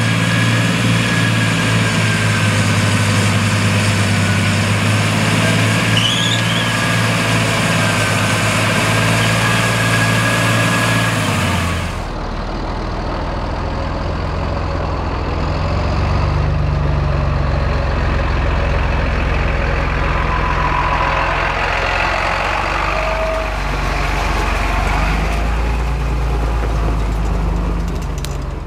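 John Deere 8200T tracked tractor's six-cylinder in-line diesel engine running steadily while working through deep mud, with a faint steady whine above the engine note. About twelve seconds in the sound cuts abruptly to a deeper, rougher engine sound that grows louder as the tractor drives past.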